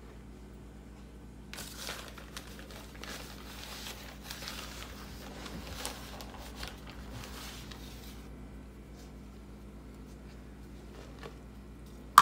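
Rustling and crinkling of a paper bag of powdered sugar as the sugar is scooped out with a measuring cup and tipped into a stand-mixer bowl, starting about a second and a half in and lasting about six seconds.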